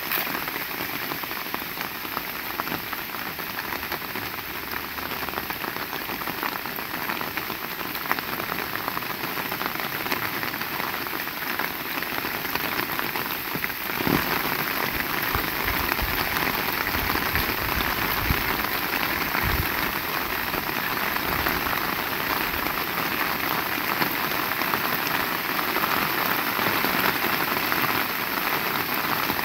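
Heavy rain falling steadily, a dense patter of drops that grows louder about halfway through, with a few low thuds soon after.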